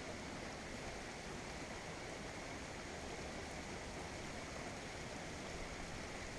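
Steady rushing of running water, an even hiss with no breaks.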